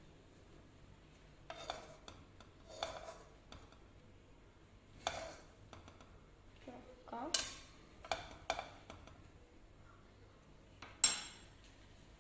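A utensil clinking and scraping against a dish, about seven separate knocks spread a second or so apart, the sharpest one near the end.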